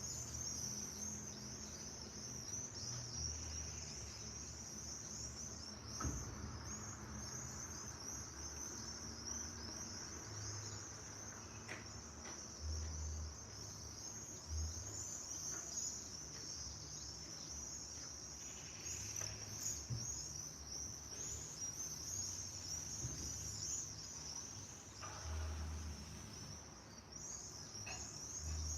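Crickets trilling in a continuous high-pitched chorus, with a few faint bird calls over it and a low rumble underneath.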